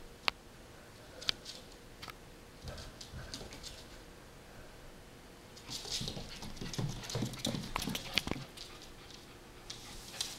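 A puppy's claws clicking and scrabbling on a hardwood floor as it plays with another dog: a few sharp separate clicks at first, then a busier stretch of scuffling and clicking about six to eight seconds in.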